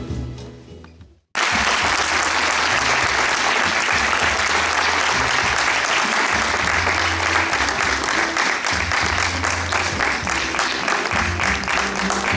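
Background music fading out, then, after an abrupt cut, an audience clapping steadily with music underneath.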